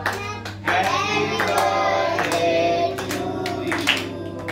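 A group of children singing a birthday song together, with hand clapping along.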